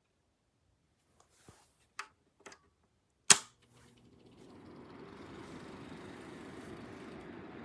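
A few light clicks, then one sharp loud click, after which a steady blowing noise builds over about a second and holds: a space heater's controls clicked and its fan running.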